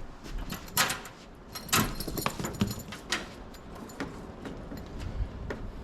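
Small metal parts clinking and rattling as they are handled, with a few sharp knocks.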